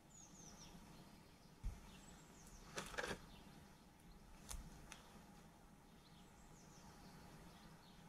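Faint outdoor garden ambience with small birds chirping now and then. A low thump about two seconds in, a short rustle about three seconds in and a couple of light clicks near five seconds come from seedlings in plastic pots being handled.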